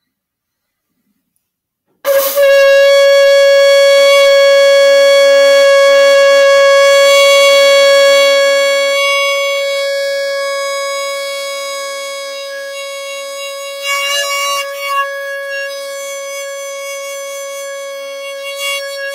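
A conch shell blown in one long, steady note that starts suddenly about two seconds in. It holds loud for about six seconds, then eases to a softer level and wavers briefly past the middle while still sounding.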